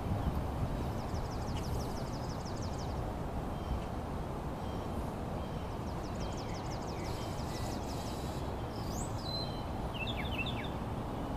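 Outdoor ambience: a steady low rumble, with a bird's rapid trill of high ticking notes heard twice, about two seconds each, and a few short bird chirps near the end.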